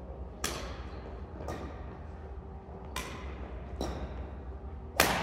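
Badminton rackets striking a shuttlecock back and forth in a rally, five sharp cracks about a second apart, each ringing on in a large gym hall; the last, near the end, is the loudest. A steady low hum sits underneath.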